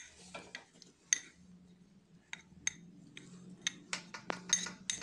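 A spoon clinking and tapping against a bowl in irregular light strikes, each with a short ringing tone and coming more often toward the end, as barley flour is spooned into the cream.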